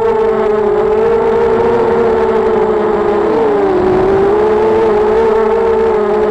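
ZMR250 racing quadcopter's four brushless motors and propellers whining, heard close from the onboard camera. The pitch wavers with the throttle and dips briefly about three and a half seconds in.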